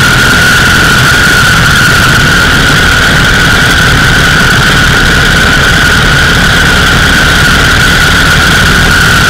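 Indian 101 Scout V-twin motorcycle running steadily at road speed, its engine rumble mixed with heavy wind rush on the bike-mounted microphone. A steady high-pitched whine sits over it.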